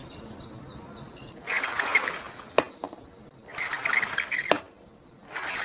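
Die-cast Lightning McQueen toy car rolling down a plastic ramp twice, each rattling run of about a second ending in a sharp click as the car knocks into something.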